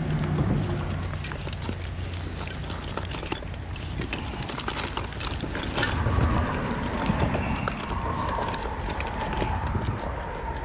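Rummaging through a zippered fabric backpack for pliers: fabric rustling, with small items knocking and clicking irregularly throughout.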